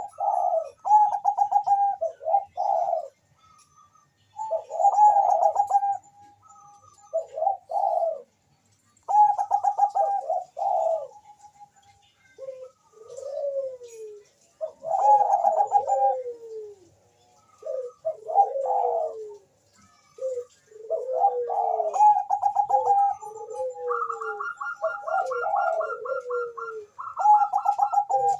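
Zebra doves of the Bangkok perkutut song type cooing in repeated stuttering phrases of quick pulsed notes, with pauses between them. Some coos overlap and fall in pitch, and a higher-pitched trilled coo joins near the end.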